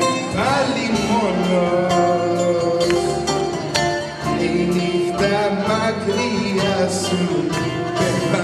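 Bouzouki playing dance music, with a voice singing along.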